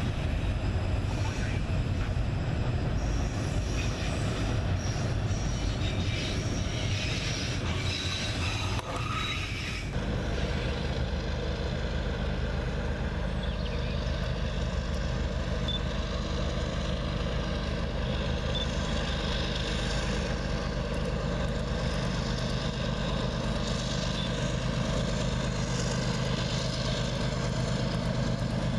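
Freight train rolling by: autorack cars rumbling and clattering along the rails. After an abrupt change about ten seconds in, a steady drone of Norfolk Southern diesel locomotives as they approach.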